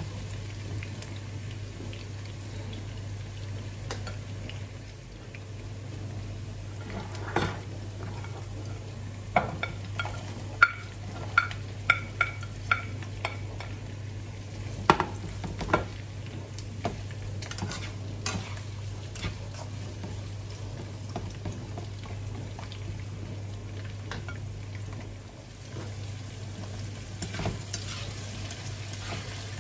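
Vegetables frying in a nonstick wok: a steady sizzle while a spatula stirs and scrapes the pan. About ten seconds in comes a quick run of sharp clacks of the spatula against the pan, each with a brief ring.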